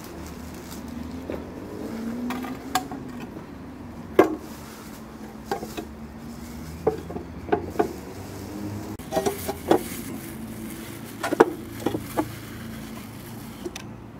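About a dozen sharp, irregular knocks and clicks, some with a short ringing, over a steady low hum.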